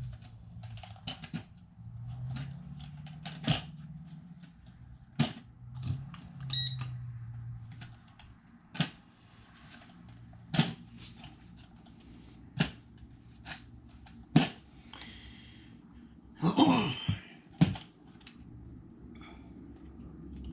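A series of irregular sharp clicks and taps over a low, wavering hum, with a brief burst that falls in pitch about three-quarters of the way through.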